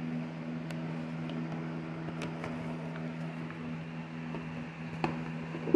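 Steady low machine hum, with a few faint clicks and a sharper knock near the end.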